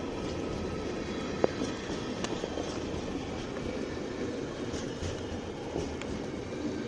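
Ferromex intermodal freight cars rolling past on the rails, a steady rumble with scattered wheel clicks, the sharpest about one and a half seconds in, under the constant noise of heavy hurricane rain and running water.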